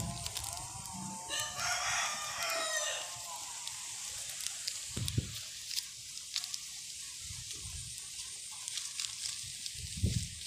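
A rooster crowing once, starting about a second in and lasting under two seconds. Faint rustling and clicks of a plastic grafting cover being handled and tied come through afterwards.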